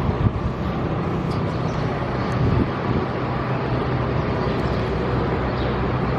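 Steady street noise of road traffic passing.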